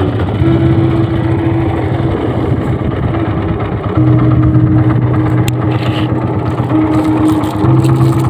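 Small fishing boat's engine running steadily at low speed, its hum growing louder about four seconds in and again near the end.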